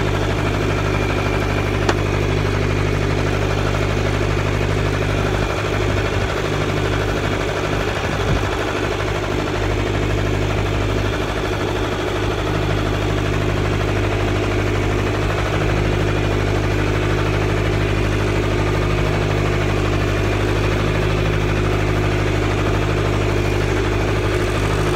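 McCormick B-275 tractor engine running steadily under load as it pulls a plough through the soil.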